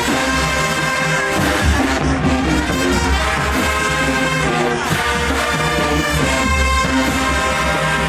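Show-style marching band playing at full volume: massed brass holding chords over a steady pounding drum line.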